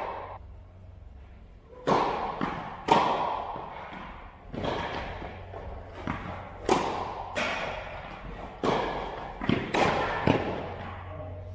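Tennis rally: the ball is struck by rackets and bounces on the court, a dozen sharp pops about a second apart, each ringing out in the reverberation of a large metal-clad indoor hall.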